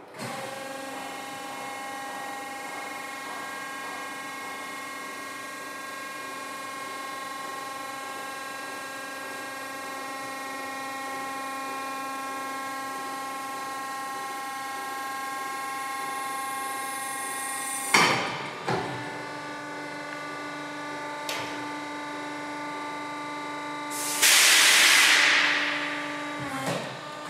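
Corghi AGT Tilt Car Mate tyre changer's motor drive running with a steady whine as the machine slides out and tilts down, a sharp clunk about 18 seconds in, then running on at a changed pitch. A loud burst of hiss starts about 24 seconds in and fades over two seconds, followed by a smaller knock.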